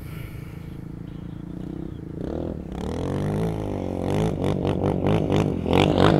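An off-road vehicle's engine revving, its pitch rising and falling as the throttle is worked, growing steadily louder as it comes closer. It ends in a fast, rattling roar at high revs.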